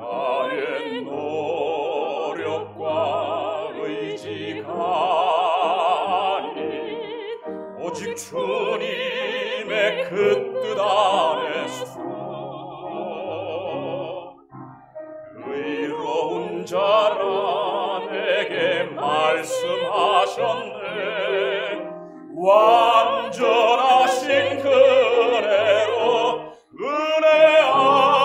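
A woman singing a sacred song in classical style with a wide vibrato, over a soft instrumental accompaniment, in phrases with short breaks between them.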